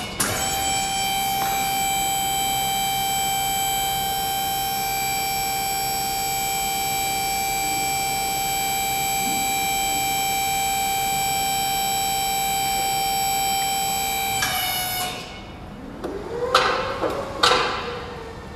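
Hydraulic power unit of a Toppy MAXI PH ADV WB pallet changer running as the forks move: a steady high whine that sags in pitch and stops about 15 s in. A couple of sharp clanks and a short rising-then-falling motor whine follow as the machine pulls back from the load.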